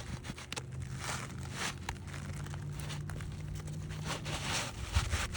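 Asphalt roofing shingles being handled and shifted on the roof: repeated gritty scraping and crinkling, with a faint steady low hum underneath.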